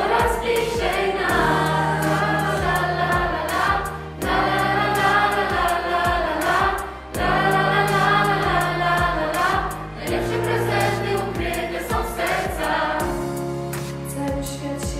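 Mixed choir of young voices singing a Christmas song in phrases over an instrumental backing with a steady beat and held bass notes.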